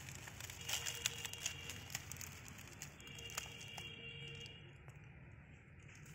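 Dry leaves crackling and sharp clicks and knocks as a rusted electric motor is lifted and turned over by hand, busiest in two spells about a second in and again around three seconds in. Faint steady high tones sound in the background during both spells.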